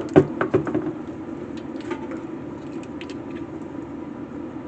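Several quick clicks and knocks of equipment being handled in the first second, then a few faint clicks over a steady low hum.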